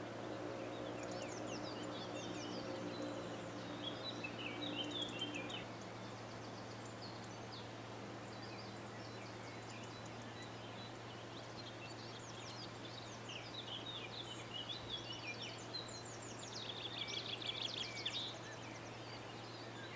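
Outdoor ambience of small songbirds chirping and trilling in bursts, busiest in the first few seconds and again in the second half, over a steady low hum. A steady droning tone also sits underneath for the first five or so seconds.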